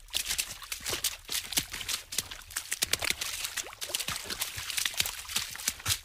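Water splashing fast: a dense, irregular run of quick splashes and drips with no let-up.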